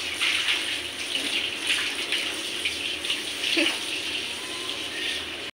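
Water splashing and sloshing in a plastic bucket as a baby sits in it and is bathed.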